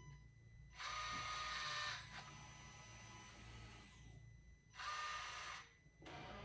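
Electrical whirring and buzzing from a 2020 BMW X3 M40i with its engine not running, while its DME is being flashed back to the stock tune. There are two louder bursts of busy whirring, about a second in and near five seconds, with a fainter steady hum between.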